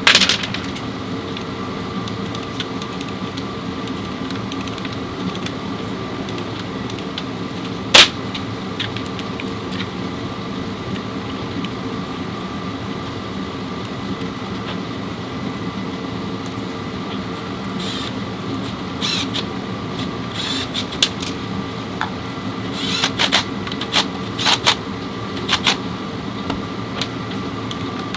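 A steady mechanical hum with several fixed tones. One sharp, loud knock comes about eight seconds in, and a run of short metallic clicks and knocks follows in the second half.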